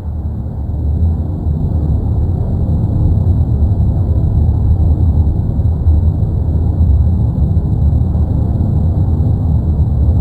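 Steady deep rumble of the erupting Cumbre Vieja volcano on La Palma, with a faint high steady whine above it.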